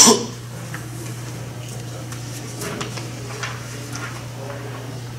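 Room tone: a steady low hum with a few faint clicks and knocks. A loud burst of noise cuts off just at the start.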